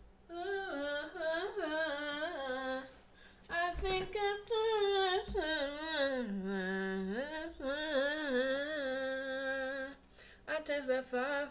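A woman singing a melody on her own, half humming it because she doesn't know the lyrics, with held, wavering notes and short breaks about three seconds in and near the end.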